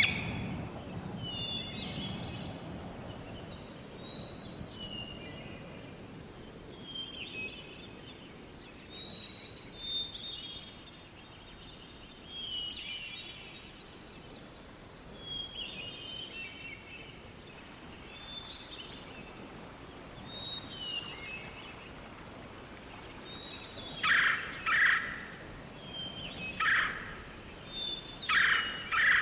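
Birds calling over a steady background hiss: short warbled phrases repeat every two to three seconds. In the last five seconds, louder harsh calls come in quick clusters.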